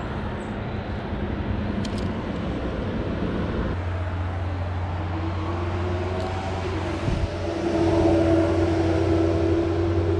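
Highway traffic: a steady rumble of passing vehicles. From about halfway through, one vehicle's engine note rises in pitch and grows louder.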